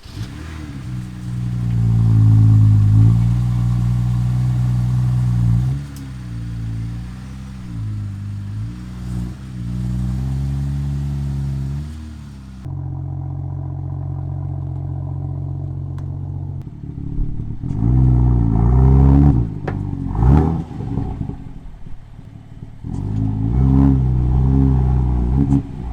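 BMW M2's N55 turbocharged straight-six running through an aftermarket modified exhaust, moving the car at low speed. In the second half it gives several short revs that rise and fall in pitch.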